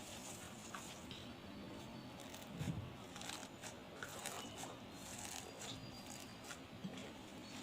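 Crunchy slime being handled, giving faint irregular crackles and little pops, with a soft low squish a little under three seconds in.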